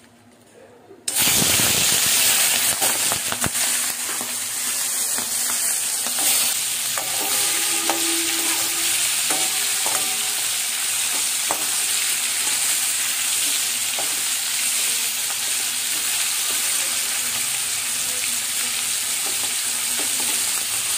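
Prawns dropped into hot oil in a metal wok: a sudden loud sizzle starts about a second in and keeps going steadily as they fry, with occasional clicks of a metal spatula against the wok.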